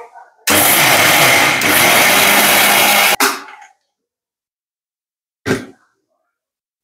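Electric mixer grinder running at full speed for about three seconds, grinding soaked rice and dal into dosa batter, then switched off abruptly. A single brief knock follows a couple of seconds later.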